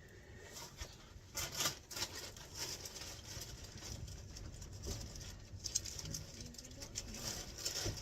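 Rustling and light knocks of a bag and items being handled and stowed, an irregular crinkling patter throughout.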